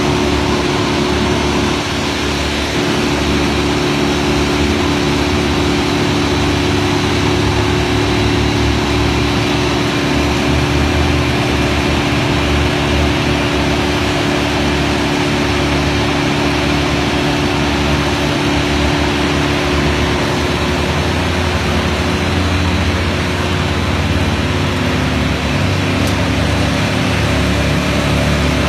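Diesel engine of a tow-behind wood chipper running steadily at a constant speed.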